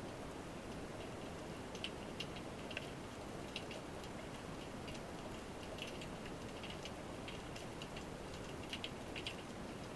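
Underwater sea ambience heard through the water: a steady low hiss with scattered sharp clicks and crackles, a few coming in quick pairs near the end.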